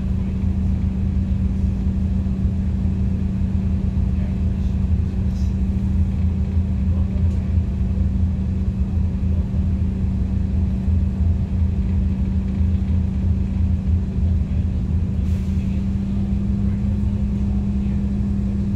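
Mercedes-Benz OC500LE CNG bus heard from inside the passenger cabin, its gas engine running with a steady low rumble and a constant hum held at one pitch.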